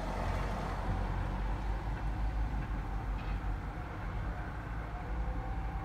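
Garbage truck engine running steadily out on the street, a continuous low drone.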